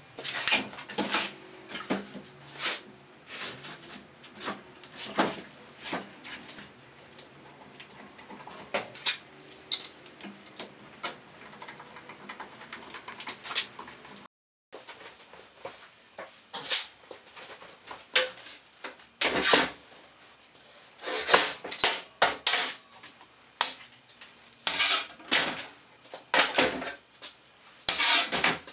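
Metal bar clamps clanking and clicking as they are set and tightened on a glued-up wooden block: a dense run of sharp metallic clinks and knocks that breaks off for a moment about halfway.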